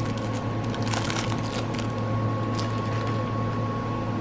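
A few light crinkles and clicks of a small item and its packaging being handled, over a steady background hum.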